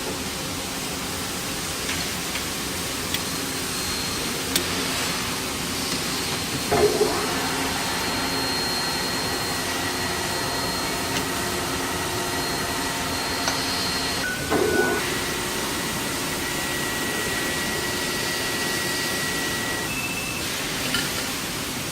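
Steady machine hiss with a low hum and faint whining tones, broken by a few light knocks and two brief louder bursts about 7 and 15 seconds in.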